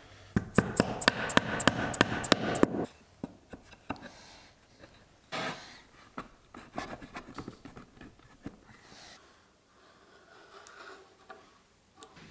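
Rubber mallet tapping a mitred wooden frame joint: about a dozen quick blows in the first three seconds. Then quieter knocks and a short scrape as the wooden rails are handled and slid on the board.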